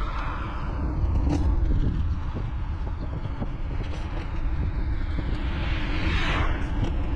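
Steady wind rumble on the microphone of a camera riding on a moving road bike. About six seconds in, a rising hiss of tyre noise comes from a van passing in the oncoming lane.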